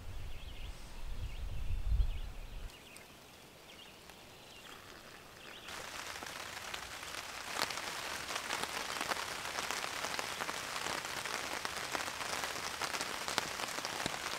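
Rain pattering on a tarp overhead, a steady dense patter of drops that sets in about six seconds in. Before it there is a low rumble for the first two or three seconds, then a quieter gap.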